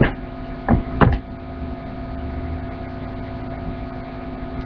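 Steady background hum with several steady tones, broken by two or three brief knocks or thumps in the first second or so.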